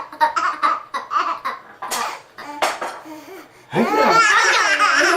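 A couple of short, sharp sneezes, then from nearly four seconds in an outburst of loud, high-pitched belly laughter set off by the sneeze.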